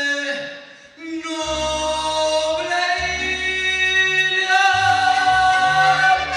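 Female singer performing live with a band of trumpets and violins. The music drops away briefly just before a second in, then comes back with long held notes over a low bass line that changes every second or two.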